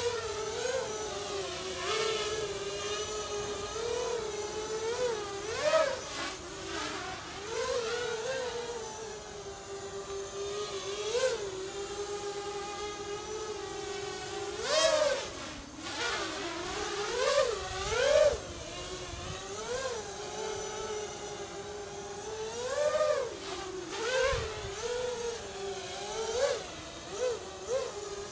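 Diatone Blade 250 quadcopter's four Multistar Elite 2204 2300 kV brushless motors whining in flight: a steady buzzing hum with many short swoops up and back down in pitch and loudness as the throttle is blipped.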